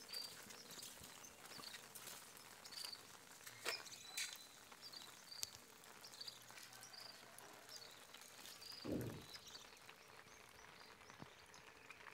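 Faint outdoor ambience with short high chirps repeating about once a second, a few scattered clicks, and a brief low sound about nine seconds in.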